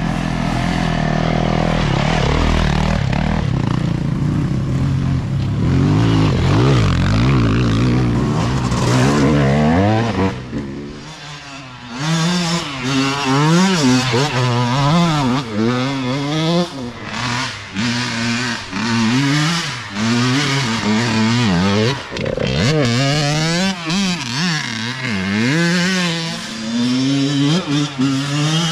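Dirt bike engines working up a rutted hill climb. For the first third the engine note is fairly steady. After a brief dip it swoops up and down again and again as the throttle is opened and closed, and one bike passes close.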